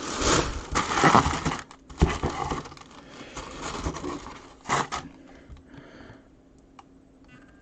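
Seals and packaging of a boxed jersey being torn open and handled: irregular crinkling, tearing and scraping in a run of noisy bursts, fading to faint handling after about five seconds.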